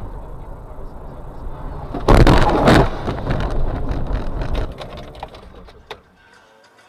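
Car interior road and engine noise heard through a dashcam. About two seconds in, a sudden loud burst of noise breaks in; it is loudest for under a second, then dies away over the next two seconds, with a sharp click near the end.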